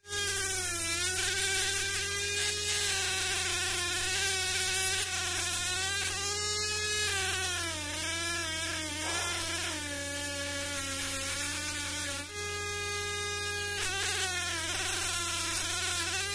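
Handheld drill spinning a foam-backed sanding disc against hard mastic wood. Its motor whine wavers and dips in pitch as the pad is pressed and eased off, and jumps higher for a moment about three quarters of the way through. A steady low hum runs underneath.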